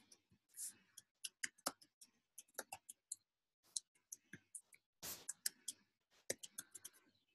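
Faint clicking of computer keyboard keys being typed, in quick irregular runs with short pauses between them.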